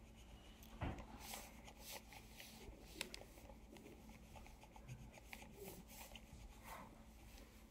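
Faint scratching of a pen on paper in short, repeated strokes, as when drawing or colouring in, with a sharper light tap about a second in and another about three seconds in.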